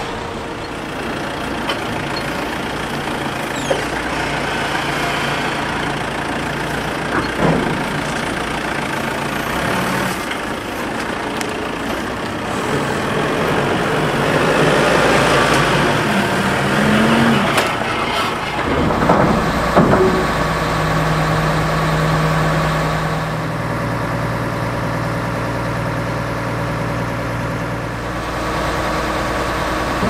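Large Doosan diesel forklift running and revving as it works hardwood logs, with several heavy knocks and clunks of the logs in the middle, and a steadier engine drone near the end.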